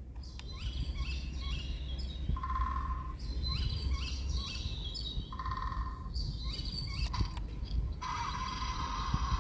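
Toy pickup truck's sound module playing recorded birdsong through its small speaker: a run of quick, high, falling chirps. Two short buzzy tones come in around the middle, and a steady tone starts about eight seconds in.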